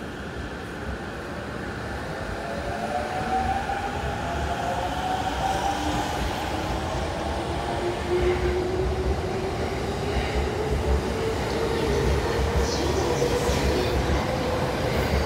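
E231-series electric train pulling away and accelerating: the traction inverter and motors whine, rising slowly in pitch, over steadily growing wheel-on-rail running noise.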